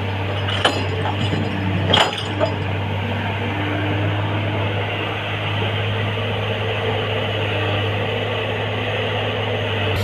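Excavator's diesel engine running steadily with a low hum, with three sharp knocks and clinks in the first two and a half seconds.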